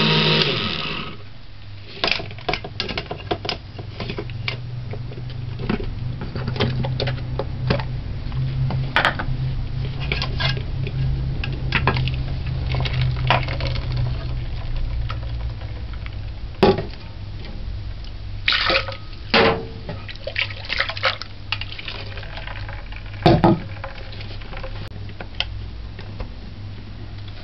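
An electric blender stops about a second in, then blended coconut is poured from the blender jug into a plastic strainer over a metal pot, with scattered knocks and clinks of the jug, strainer and pot over a low steady hum.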